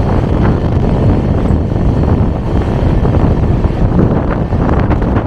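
Passenger train running along the track, a steady loud rumble, with wind buffeting the microphone at an open train door or window.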